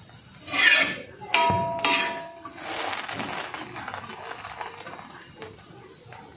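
A flat steel spatula scraping and clanking on a flat iron griddle (tawa) as a slice of bread toasting in ghee is flipped and pressed, with one ringing metallic clang about a second and a half in. A softer hiss follows as the bread fries in the ghee.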